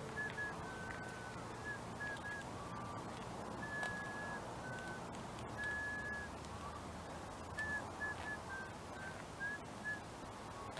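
A bird singing: short, clear whistled notes at a few different pitches, scattered irregularly over faint background hiss.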